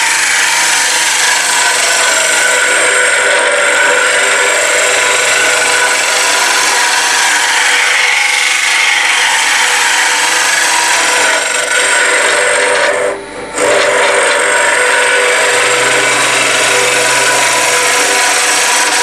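A 19 mm hook cutter in a hollowing rig cutting the inside of a spinning wooden hollow form on a lathe: a steady, loud hiss of shavings being cut. It breaks off for about half a second around 13 seconds in, when the cutter comes off the wood, then carries on.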